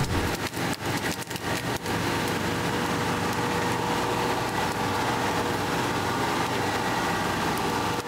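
Work truck's engine running steadily, with a run of sharp cracks and knocks in the first two seconds.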